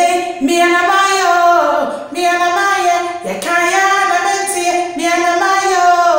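A woman singing solo without accompaniment, in long held notes that glide in pitch, with short breaths about two and three seconds in.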